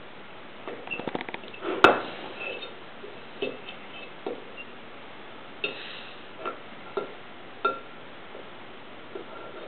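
Fork clinking and scraping against a bowl of spaghetti as a small child twirls and stabs at the pasta: scattered light taps, a quick run of ticks about a second in, and one sharper clink just after.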